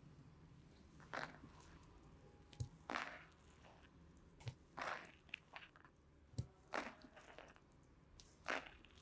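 Hands massaging the neck and behind the ears, with fingers rubbing over skin and hair. Short crunchy rubbing strokes come about every two seconds, five in all, with a few soft low thumps between them.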